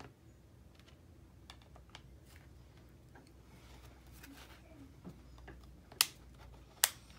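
Pelican hard plastic phone case being pressed and snapped onto an iPhone 8: faint scattered clicks of plastic handling, then two sharp snaps near the end as the case clicks into place.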